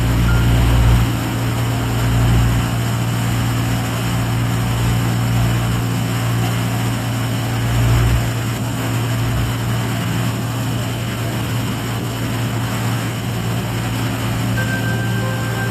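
A small ferry's engine running with a steady low drone.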